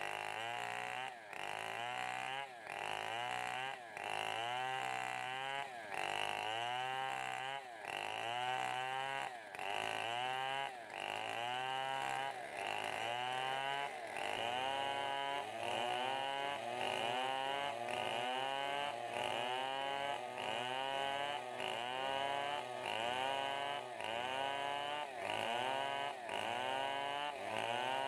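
Two-stroke chainsaws, including a STIHL 070, running under load while ripping a timber into lumber. The engine pitch rises and dips in a steady rhythm, about once every three-quarters of a second.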